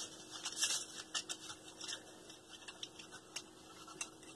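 Paper wrapping crinkling by hand, with scattered small clicks and ticks, as a ceramic pump seal ring is unwrapped. The rustle is briefly louder about half a second in.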